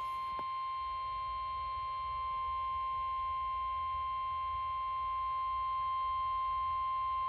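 NOAA Weather Radio 1050 Hz warning alarm tone: one steady, unbroken high tone, the signal that a warning message is about to be broadcast, over a low hum of receiver noise.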